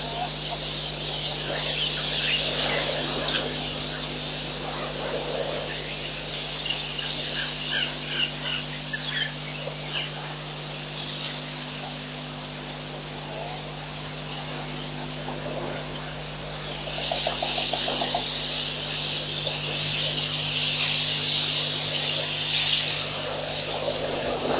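Bushveld ambience: high insect buzzing that swells up near the end, with scattered short bird chirps, over a steady electrical hum.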